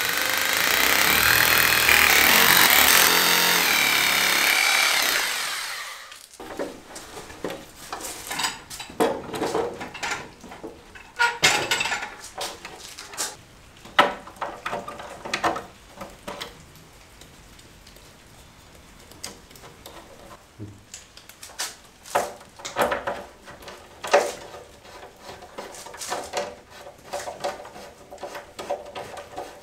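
Power drill boring into the wall for about six seconds, its motor pitch wavering, then stopping suddenly. After that come irregular clicks, taps and knocks of a plastic fuse box being held to the wall and screwed on by hand.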